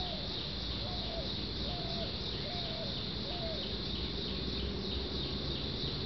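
Insects chirping in a steady, evenly pulsing high trill, about two or three pulses a second. In the first few seconds a short low call sounds about five times in a row, roughly once a second, over a low rumble.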